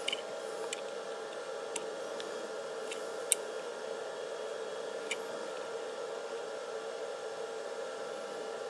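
Steady machine hum in a small workshop, running evenly, with a few light, sharp clicks in the first half; the loudest click comes about three seconds in.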